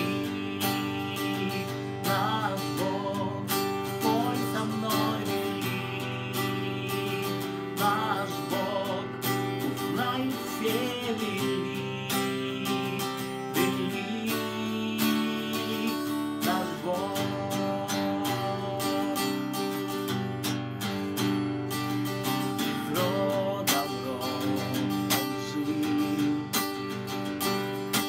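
Man singing a worship song in phrases while strumming chords on an acoustic guitar.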